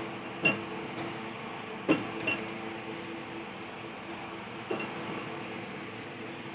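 A steel cooking pot and a ceramic serving bowl clinking as thick curry is scooped from one into the other. Several sharp clinks, most in the first two seconds and one more near five seconds, over a steady low hum.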